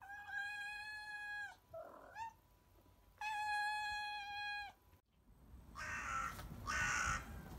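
A cat meowing: two long, drawn-out meows held at a steady pitch, with a short rising mew between them. Near the end a hissing outdoor noise swells twice.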